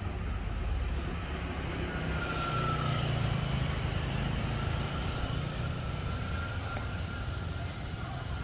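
Steady street traffic noise, with a faint high tone about two seconds in and again midway.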